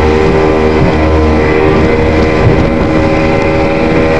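Speedboat engine running steadily under way, with the rush of water along the hull.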